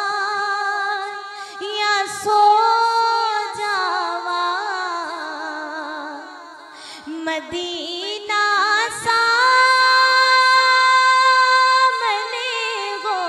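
A woman singing a Punjabi naat, drawing out long held notes with wavering ornaments.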